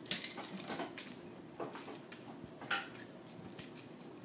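Small scattered clicks and scrapes from handling a GFCI receptacle and its copper wires while they are connected to the terminals, with a louder click at the start and another a little before three seconds in.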